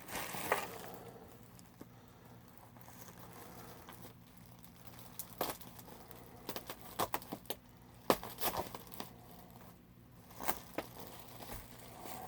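Packing material crinkling and rustling as it is handled, with scattered light clicks and knocks.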